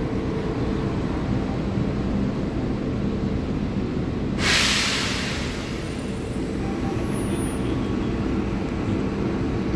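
E500-class electric locomotive standing with its equipment humming steadily. About four seconds in, a sharp hiss of compressed air bursts out and fades over about a second.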